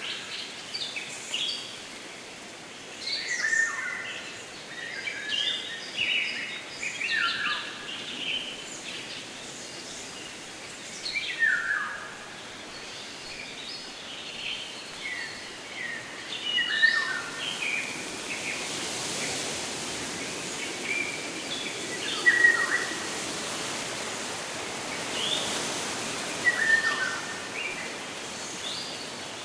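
Several songbirds calling with quick, sharply falling chirps, scattered irregularly, over a steady outdoor background rush that grows a little louder in the second half.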